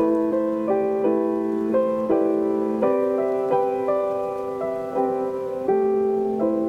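Background music: a soft, gentle piano tune with notes and chords played at an unhurried pace.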